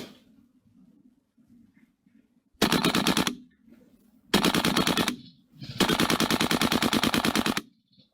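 Tokyo Marui AKM gas blowback airsoft rifle firing full-auto in three bursts, the last one the longest, each a rapid even rattle of shots with the bolt cycling.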